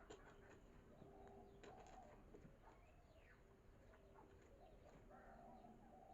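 Faint bird calls, short chirps and coos repeating on and off over a very quiet background.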